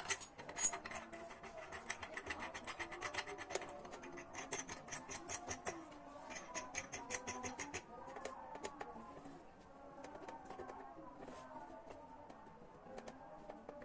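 Rapid metallic clicking from turning the threaded crankshaft installer tool that draws a Yamaha Soul GT 125 crankshaft into its crankcase half. The clicks come in quick runs, several a second, and thin out after about eight seconds.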